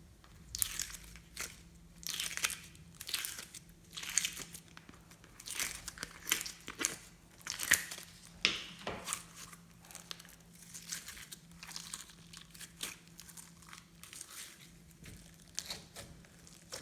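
Glossy slime being kneaded and mixed by hand, with irregular crackling, crinkly squishes about once or twice a second.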